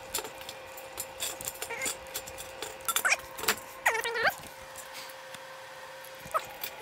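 Steel brackets and square steel tubing being handled: scattered clanks and knocks of metal on metal, with a short metallic squeal of something sliding about four seconds in. A faint steady hum runs underneath.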